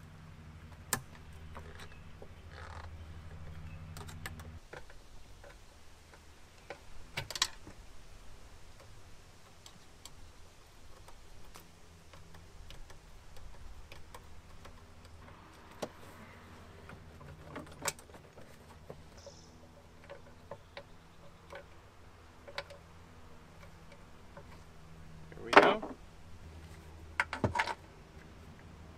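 Hand-tool work on a jet ski engine: a screwdriver tightening a metal hose clamp on the exhaust, giving scattered light metallic clicks and scrapes over a faint low hum. A louder clank comes about 26 seconds in, with a few more knocks a second or so later.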